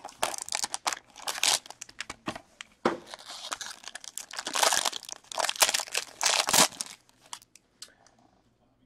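Foil trading-card pack wrapper crinkling and tearing as it is ripped open by hand, in irregular crackles that stop about seven seconds in.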